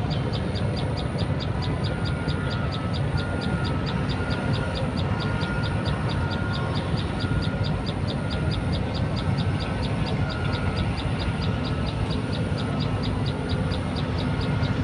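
Steady low outdoor rumble, with a fast, regular high-pitched ticking about four times a second over it.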